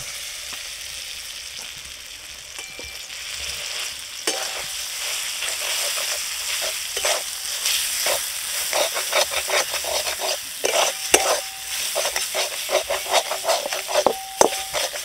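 Ground lentil paste sizzling as it fries in hot oil in a metal kadai. From about four seconds in, a metal spatula scrapes and stirs it against the pan in quick repeated strokes.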